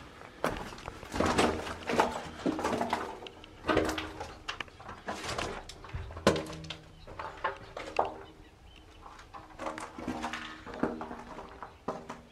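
Irregular footsteps, knocks and scuffs, each ringing briefly in the small echoing room of an air raid shelter.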